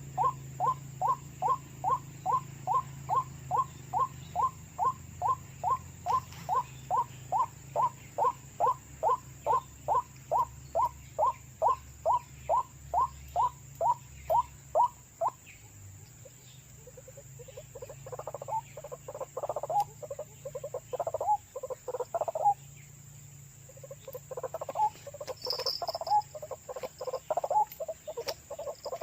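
White-breasted waterhen calling: a steady run of repeated "kru-ak" notes, about two to three a second, that stops about fifteen seconds in. Two bouts of faster, more jumbled calling follow.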